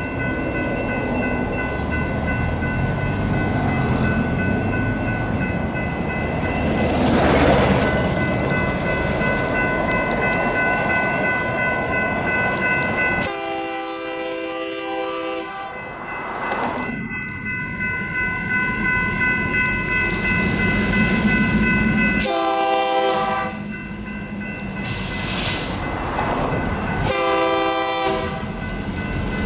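Locomotive air horn sounding three blasts, a longer one about 13 seconds in and two shorter ones near the end, the horn signal of a freight train nearing the grade crossing. Under it the crossing's GS Type 3 electronic bells ring steadily, with the low rumble of the approaching train.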